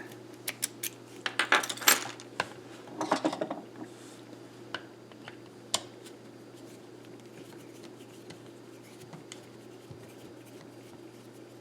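Small metal tools clinking and clattering against each other and a hard surface as they are handled: a flurry of sharp clicks over the first few seconds, then a few scattered taps.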